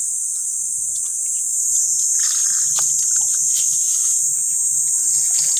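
Steady high-pitched chorus of insects, crickets or cicadas, shrilling without a break, with a few soft clicks and rustles in the mud underneath.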